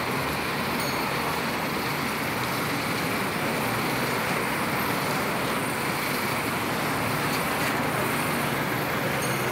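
Steady road traffic noise: a constant rush of passing vehicles, even throughout with no single event standing out.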